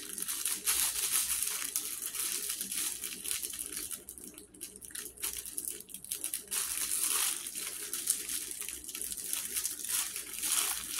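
Crinkly plastic packaging rustling and crinkling as it is handled and opened, easing off briefly about four seconds in before picking up again.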